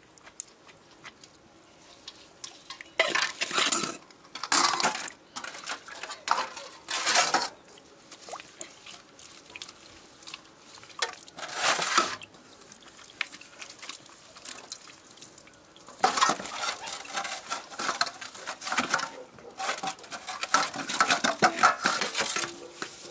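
Pots, pans and metal utensils clattering in kitchen handling, in several short bouts through the first half and a longer, busier stretch over the last seven seconds.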